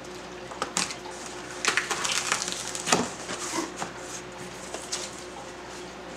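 Cardboard shipping box being opened by hand: packing tape torn away, flaps pulled open and paper packing rustled. It comes as a run of scratchy tearing and crinkling noises, loudest around the middle.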